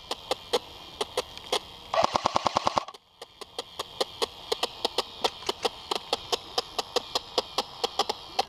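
Airsoft electric guns firing: sharp clicking shots, with a loud rapid full-auto burst of about a dozen rounds around two seconds in, then a steady run of shots about four or five a second.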